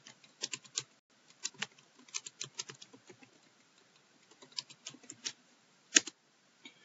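Computer keyboard typing: irregular bursts of short key clicks, with one sharper, louder click about six seconds in.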